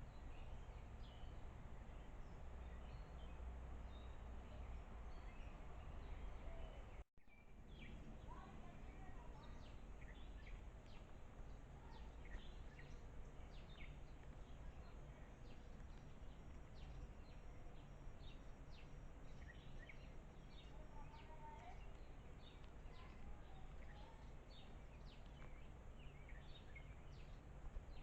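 Faint outdoor ambience with a steady low rumble and many short, high bird chirps, which come thick and fast after a brief dropout about seven seconds in.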